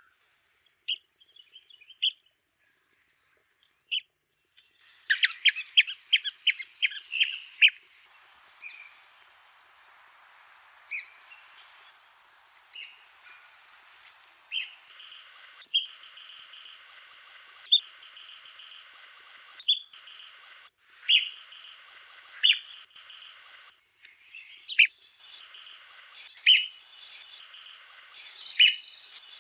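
Red-cockaded woodpeckers giving short, sharp, high-pitched, squeaky calls, mostly single notes every second or two, with a rapid chattering run of calls about five to eight seconds in. A steady high hiss sits behind the calls through the later part, cutting in and out abruptly.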